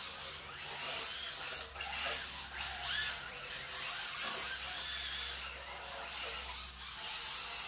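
Electric motors of 1/10-scale RC drift cars whining as they drift, the high-pitched whine rising and falling again and again with the throttle, over a steady hiss.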